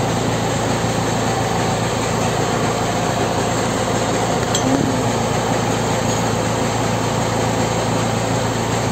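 An engine idling steadily, with a faint click about four and a half seconds in.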